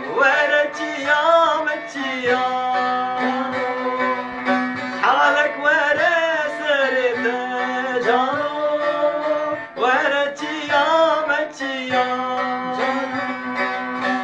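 Men singing a Turkish folk-style song with the melody bending and wavering, accompanied by a bağlama (long-necked saz) strummed steadily under a held low note.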